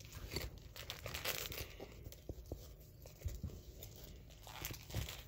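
Small candy wrapper being torn open and crinkled by hand, with irregular crackles and clicks.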